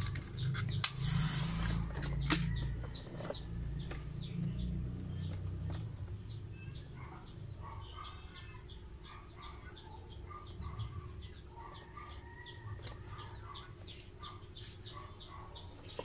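A match struck on its box about a second in, flaring briefly, while small birds chirp steadily at about three chirps a second and chickens cluck in the background.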